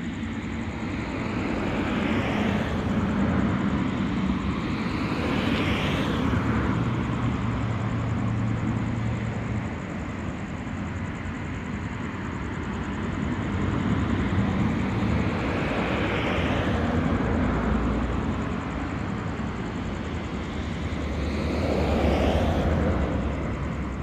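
Distant vehicle noise, a broad rumble that swells and fades about four times as vehicles pass.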